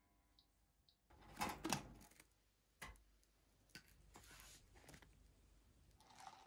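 Faint handling sounds: a short clatter about a second in, then a few single clicks.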